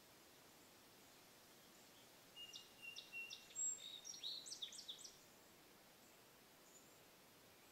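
A small bird's short song: a burst of high whistled notes and quick chirps starting a little over two seconds in and lasting under three seconds, against near silence.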